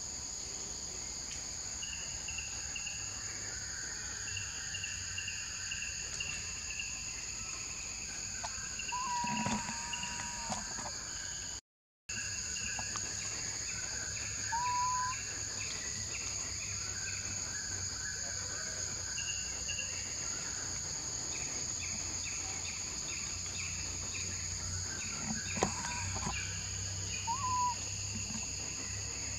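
Forest ambience: a steady high-pitched insect drone, with rows of short chirps and a few brief whistled bird calls. The sound drops out completely for a moment about twelve seconds in.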